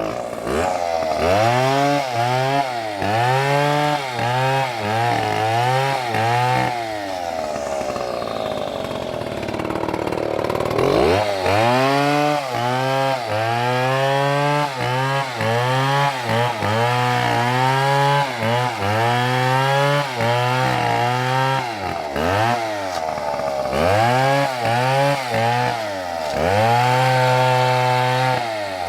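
Large Stihl chainsaw engine revving up and dropping back over and over, about once a second. Between about 7 and 11 seconds in, its pitch sinks and holds lower for a few seconds, then the revving picks up again.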